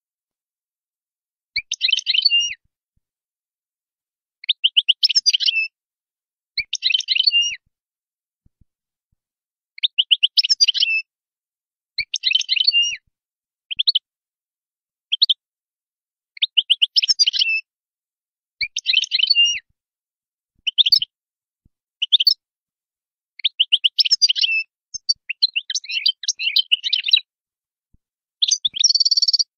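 European goldfinch singing: short bursts of rapid, high twittering notes, each a second or less long, coming every second or two with silent gaps between. A denser, longer burst comes near the end.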